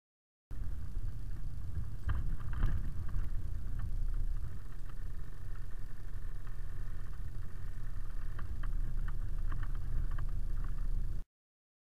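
Delivery truck driving, heard from inside the cab through a dash cam's microphone: a steady low engine and road rumble with scattered light rattles and clicks. It starts abruptly about half a second in and cuts off sharply near the end.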